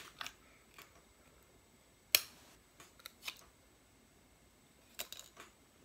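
A plastic nutrition-drink bottle being opened by hand: small clicks as the screw cap is twisted off, and a sharp snap about two seconds in, with a few more crinkling clicks as the foil seal is peeled from the neck.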